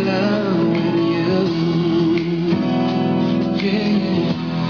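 A song with guitar and singing playing through a home loudspeaker driven by a Zapco AG350 car amplifier under test.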